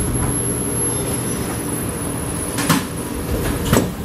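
Kawasaki C751B metro train standing at the platform, its onboard equipment humming steadily. Two sharp clunks, about two and a half and nearly four seconds in, come as the train doors and the platform screen doors unlock and slide open.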